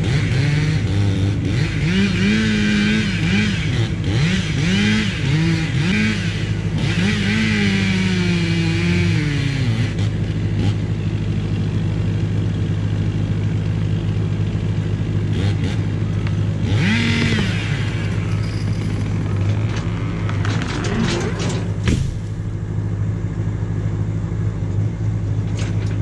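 Chainsaw cutting through a sweet gum trunk, its pitch wavering and dropping as it bogs in the cut for about ten seconds, then revving again briefly. A heavy thump follows as the trunk falls to the ground. The saw has been binding in cuts, which the operator blames on a bar that may be bent or burred.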